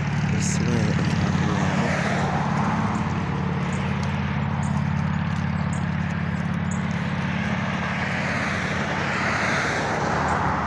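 Steady low engine hum of motor traffic, with vehicles swelling past about two seconds in and again near the end.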